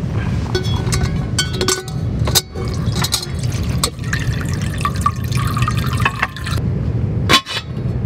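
Water running from a camping water jug's spigot into a stainless steel pot, with sharp clinks and knocks of the stainless cookware being handled. A steady low rumble runs underneath.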